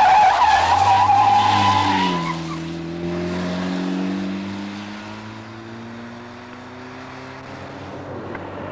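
Talbot Solara squealing through a bend for about two seconds, then its engine pulling away, the note rising steadily as it accelerates and growing fainter.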